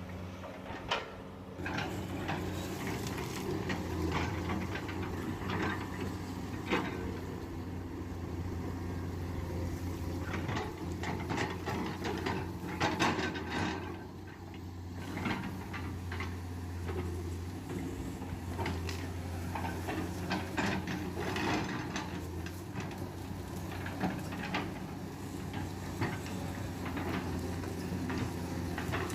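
Komatsu PC200 excavator's diesel engine running steadily under work, with frequent irregular clanks and knocks of the machine at work throughout.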